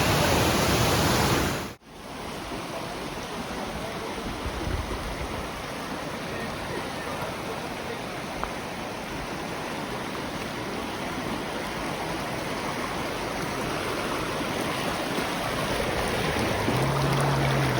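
Steady rushing water of a waterfall. It cuts off abruptly about two seconds in, then resumes a little quieter and slowly grows louder.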